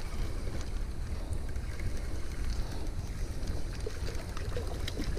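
Wind buffeting the microphone, a steady low rumble, with a few faint light ticks over it while a fish is reeled in on a spinning rod.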